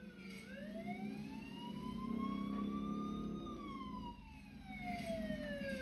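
Cartoon police car siren wailing: one slow rise in pitch for about three seconds, then a slow fall, heard through a television speaker.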